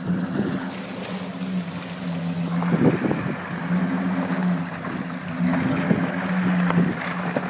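Jeep Grand Cherokee's 5.2-litre V8 pulling under load through deep mud ruts, its engine note rising and falling, with tyres churning and splashing through mud and water, loudest about three seconds in.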